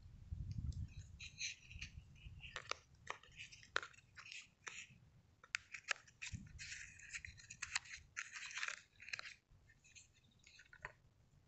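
Fingers handling a small cardboard box and sliding it open: a run of papery scratches, rustles and small clicks, thickest in the middle seconds, with a few sharper clicks.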